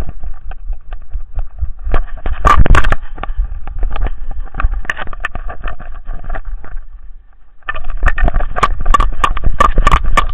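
Handling noise from a camera carried by a running dog: dense irregular knocks and rattles from the mount, with a low wind rumble on the microphone. It eases briefly about seven seconds in, then picks up again.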